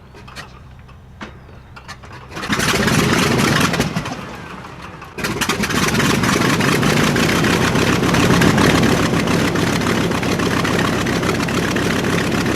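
Wright R-2600 radial engine of a B-25J Mitchell bomber starting: a few faint clicks, then the engine catches loudly about two and a half seconds in, sags for a moment, and from about five seconds in runs steadily and roughly at full loudness.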